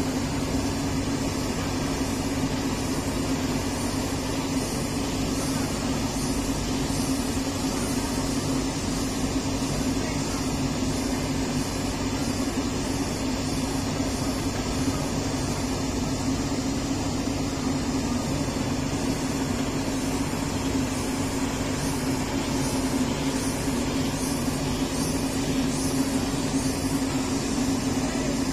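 Komatsu PC200-8 excavator's diesel engine running steadily at a constant speed, a low, even drone with no revving.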